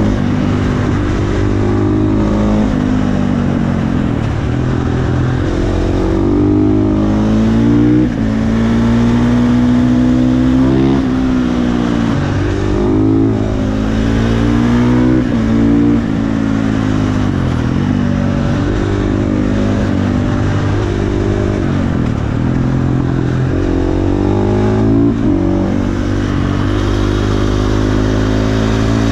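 KTM 450 supermoto's single-cylinder four-stroke engine under way, revs climbing and dropping back again and again as the rider shifts gears and rolls on and off the throttle.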